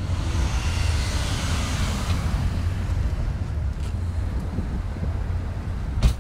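Steady low rumble of outdoor traffic and wind, with a rushing hiss that swells and fades over the first two seconds or so, and one sharp click near the end.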